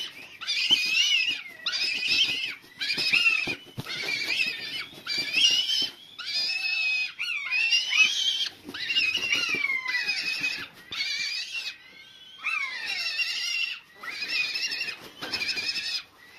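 Juvenile buzzard giving repeated high, wavering begging calls, about one a second, while taking food from a hand.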